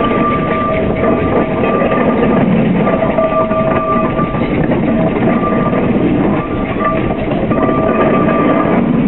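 Steam traction engine driving slowly past, a steady mechanical clatter from its running gear, with a high steady tone that comes and goes in short spells.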